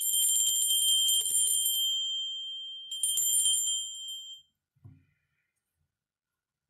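Small cut rock-crystal bell with a broken-off handle, shaken twice: each time it rings with clear, high, glassy tones that die away over a second or two. A faint low knock follows near the end, then silence.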